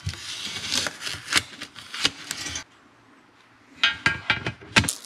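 Protective plastic film being peeled off a sheet-metal radiator fan shroud, a crackling hiss dotted with small clicks. After a brief pause, a few sharp clattering knocks as a 16-inch electric radiator fan is set down onto the shroud.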